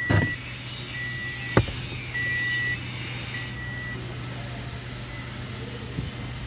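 A steady high electronic beep, about half a second long, repeating about once a second four times and fading out, with a sharp click about a second and a half in, over a steady low hum, as the ignition is switched on.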